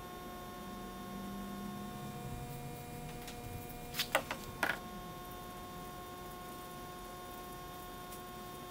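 Steady electrical hum, with a quick cluster of four or five light plastic clicks and taps about halfway through as the small epoxy squeeze bottles are handled and set down on the bench.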